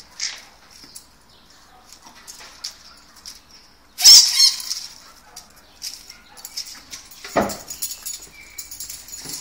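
A small dog scrabbling and sniffing in dry leaves behind plastic trash carts, with many small scratches and rustles. A loud, high-pitched squeal comes about four seconds in, and a short falling whine about seven seconds in.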